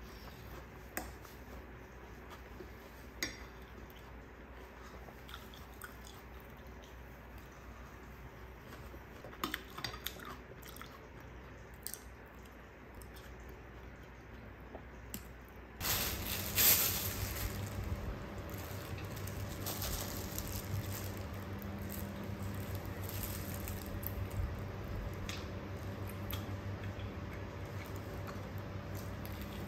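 Metal spoon clinking lightly against a glass dessert bowl, with quiet chewing of yogurt and cereal. About halfway through, a sudden burst of rustling and crunching starts, then fried chicken being eaten over a steady low hum.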